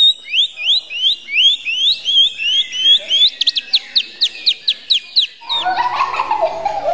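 Fast series of high chirping notes, first rising slides about three a second, then a quicker run of falling ones. They cut off about five and a half seconds in, giving way to voices in a large room.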